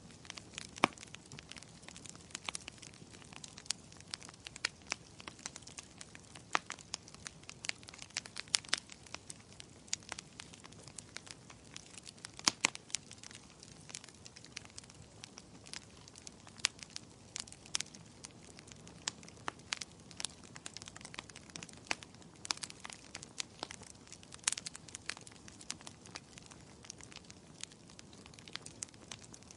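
Firewood burning in a fireplace, crackling with irregular sharp pops, several a second, over a soft steady hiss of flames.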